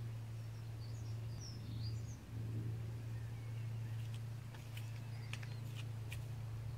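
Small birds chirping briefly in the first two seconds over a steady low hum, then a few sharp clicks about four to six seconds in.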